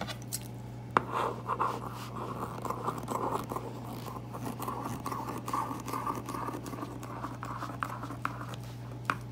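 Kitchen scissors cutting through a stack of phyllo dough sheets: a sharp snip about a second in, then a long run of dry, papery scraping and snipping as the blades work along the stack. A steady low hum sits underneath.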